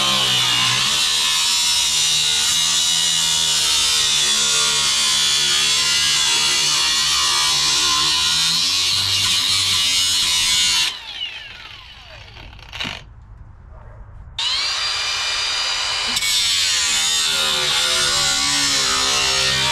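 Power tool cutting out a rusted sheet-metal car floor pan, running with a steady high whine. About 11 seconds in it winds down with falling pitch and stops, then spins back up about 14 seconds in and cuts on.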